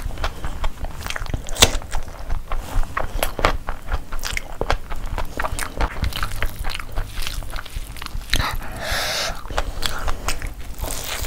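Close-miked wet chewing and lip smacks of someone eating biryani by hand with a full mouth, in a quick, uneven run of clicks. About nine seconds in there is a short, louder rustle.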